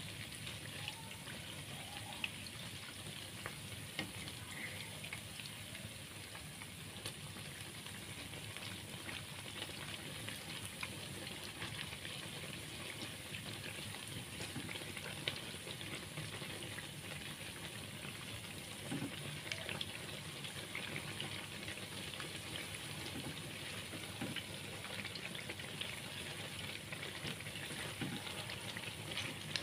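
Corn fritters deep-frying in a wok of hot oil: a steady sizzle with fine crackling, broken by a few light clicks of a spatula turning them.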